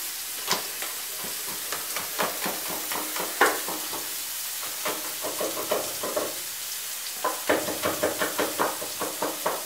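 Chef's knife chopping garlic on a wooden cutting board: scattered knocks, then a fast even run of about five chops a second near the end. Food sizzles steadily in a frying pan throughout.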